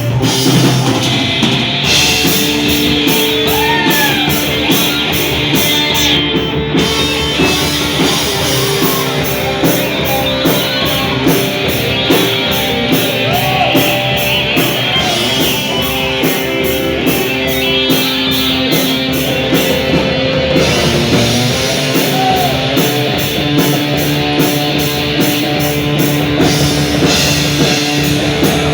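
Rock band playing live: electric guitars holding and bending notes over bass and a drum kit, with a steady cymbal beat.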